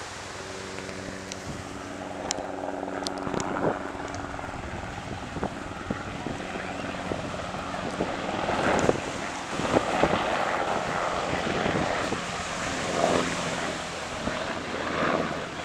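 Black Hawk-type military helicopter flying past, its steady rotor and engine hum carrying a few held tones. Gusts of wind on the microphone break over it now and then.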